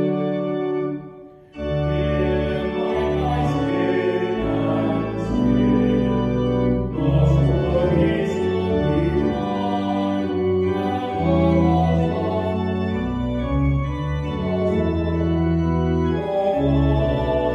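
Organ music: held chords changing every second or so, with a short break about a second and a half in before the playing starts again.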